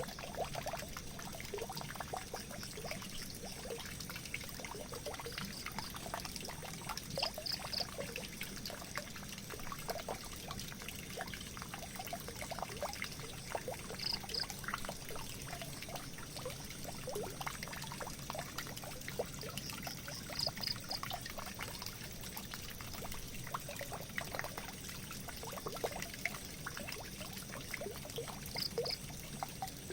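Water pouring and trickling down a drain, a steady splashing flow. A few short high peeps in twos and threes sound over it at intervals.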